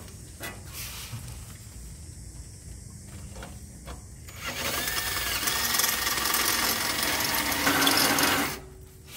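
Ryobi cordless drill with a step drill bit boring out a bolt hole in a metal exhaust bracket, to make room for a U-bolt. It runs steadily for about four seconds from a little before halfway and then stops, after a few light clicks of handling.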